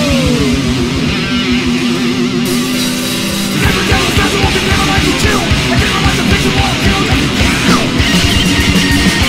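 Thrash metal music: distorted electric guitar riffing, with the full band's drums coming in hard about three and a half seconds in.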